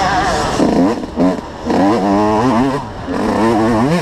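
Motocross bike engine heard up close while riding, revving with a wavering pitch; the engine note drops off about a second in and again near three seconds, then climbs back up.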